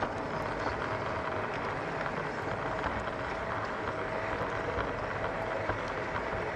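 LGB garden-railway model train running along the track: a steady rolling rattle of wheels on the rails with scattered light clicks and a faint steady motor whine.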